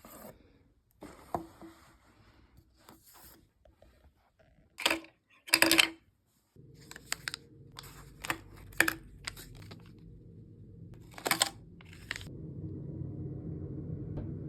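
Makeup packaging being handled and opened: a string of short crinkles, clicks and tearing sounds, loudest about five and six seconds in. A low steady hum comes in about six and a half seconds in.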